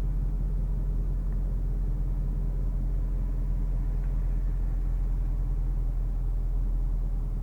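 2014 Range Rover Sport's supercharged 5.0-litre V8 running at a steady engine speed: a deep, even rumble with no revving.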